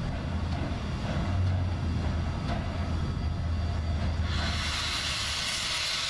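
Western Maryland Scenic Railroad 734, a 2-8-0 steam locomotive, rumbling low and steady as it draws slowly closer. About four seconds in, a loud steady hiss of steam starts from the cylinder area at the front of the engine.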